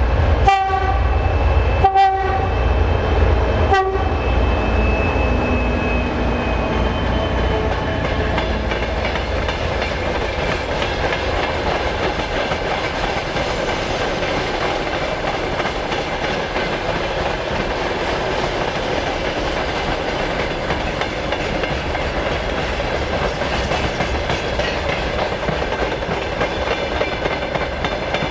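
2M62U diesel locomotive sounding three short horn blasts as it passes, over the low rumble of its engines. Then the long freight train's wagons roll past with a steady clatter of wheels.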